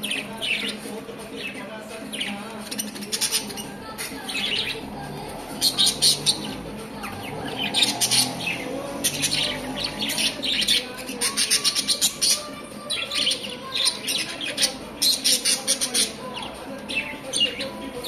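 Several budgerigars chirping and chattering, with quick runs of high, short chirps coming in clusters throughout.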